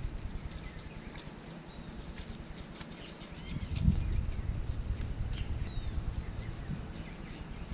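A hand-held fish scaler scraping the scales off a whole fish: a run of short scratchy clicks at an uneven pace, with a few faint bird chirps.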